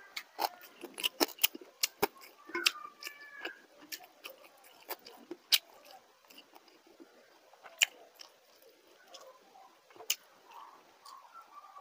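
A person chewing crunchy food close to the microphone: a quick run of sharp crunches and clicks in the first half, thinning to a few single cracks and softer mouth sounds later.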